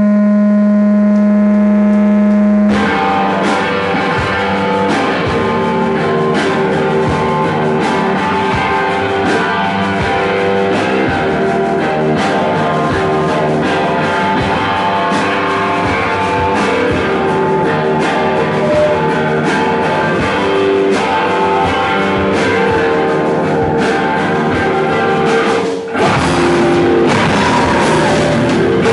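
Hardcore band playing: distorted electric guitars, bass and drum kit. It opens on a sustained, steady guitar tone for about three seconds before the full band comes in, then breaks off briefly near the end and comes back louder.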